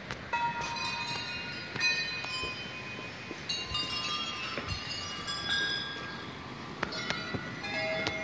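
Small brass temple bells struck one after another, about half a dozen strikes, each ringing on with several clear overlapping tones.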